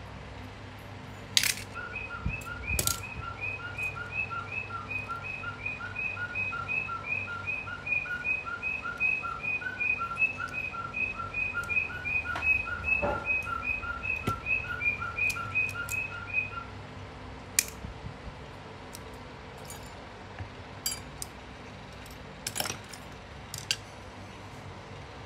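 A long run of short, high, evenly spaced chirps, about three a second, which stops about two-thirds of the way through. Sharp clicks and knocks of small tools and metal parts handled on a workbench come between and after.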